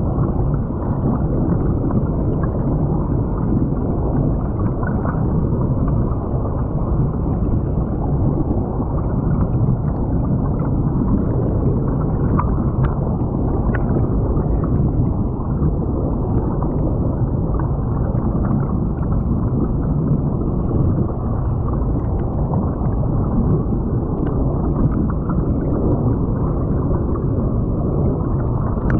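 Creek water rushing and gurgling, heard through a camera lying underwater: a steady, muffled low rushing with a few faint ticks.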